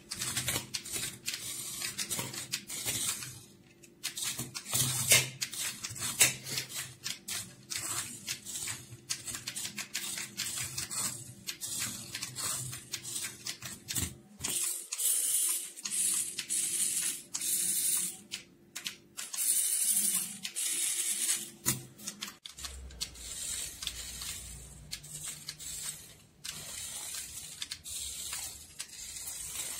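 Revell Mini RC car's tiny electric motor and gears whining in many short start-stop bursts as it is driven back and forth.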